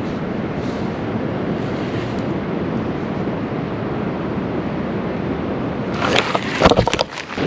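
Steady rushing of creek water. About six seconds in, a cluster of sharp knocks and clicks breaks in over it.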